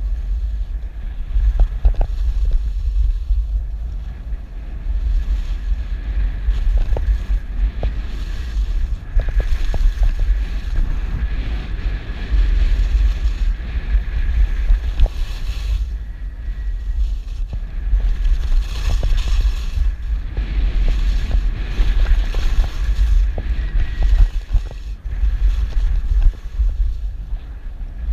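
Wind buffeting the microphone of a camera moving downhill on skis, a loud steady rumble, with the hiss of skis sliding and carving on packed snow swelling and fading with the turns.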